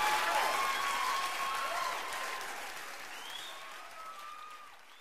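Crowd applause with a few voices calling out over it, fading out steadily.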